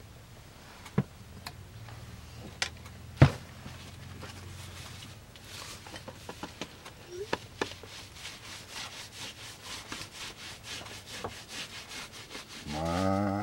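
Cloth in a gloved hand rubbing dye into a leather strap. It starts with a few sharp clicks and knocks, the loudest about three seconds in, then settles from about halfway through into quick, even back-and-forth strokes, about four or five a second.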